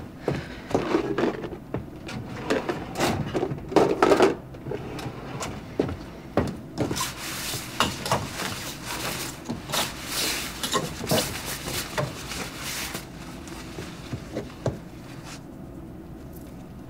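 Household handling sounds: a run of clicks and knocks, loudest about four seconds in, then fabric rustling with clicking as salon capes are moved on their hangers on wall hooks, tailing off to a few light clicks near the end.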